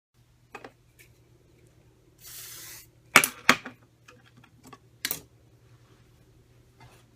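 A short hiss of Oribe Soft Lacquer heat-protectant spray misted onto the hair, followed by several sharp clicks and knocks from handling styling tools and setting them down. The knocks are the loudest sounds.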